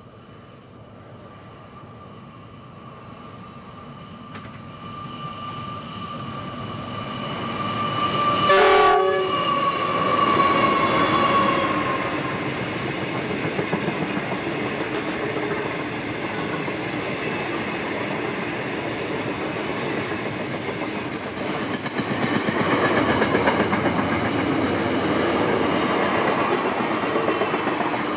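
A diesel-electric freight train led by two NR-class locomotives approaches, growing louder, with a steady high whine that drops in pitch as the locomotives pass about eleven seconds in. Loaded wagons then roll by with continuous wheel noise and rail clatter, and there is a brief high squeal around twenty-one seconds in.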